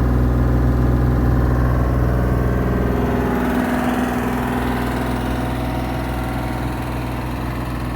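2019 Bobcat E32 mini excavator's diesel engine running, its note changing about halfway through.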